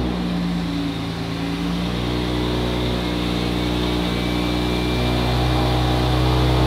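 BMW B58 turbocharged inline-six, fitted with a Pulsar 6466 ball-bearing single turbo, idling steadily right after being started, with a thin high turbo whistle over the idle.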